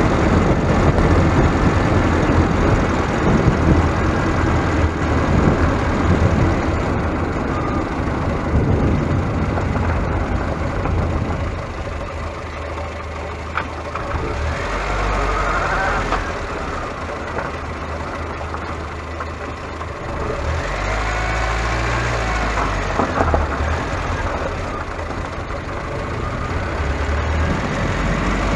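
Steady low rumble of a moving vehicle travelling along a road, easing somewhat in the middle, with a few faint higher warbling sounds over it.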